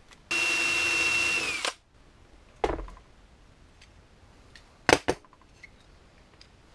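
Power drill running for about a second and a half, boring into the steel oven door hinge where the loose rivet was, its motor whine dropping in pitch as it stops. A few sharp metallic knocks follow.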